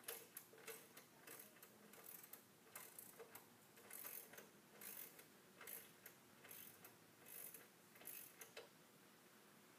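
Faint, irregular clicking of a ratchet wrench as bolts at the rear shock mount of a snow-bike track kit are tightened.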